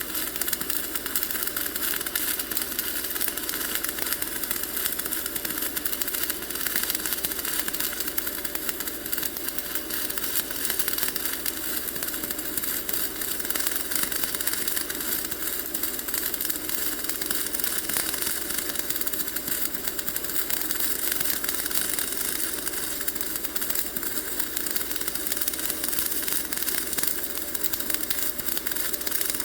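Dual shield (gas-shielded) flux-core welding arc from a Simder SD4050 Pro wire welder at 21.5 volts, running a bead with a steady, dense crackle.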